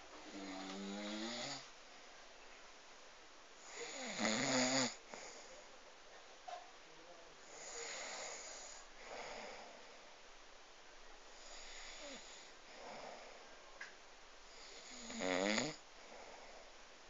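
A sleeping person snoring heavily, one snore on each breath about every three to four seconds. The biggest snores, near the start, about four seconds in and near the end, are loud buzzing rattles; the ones between are softer and breathier.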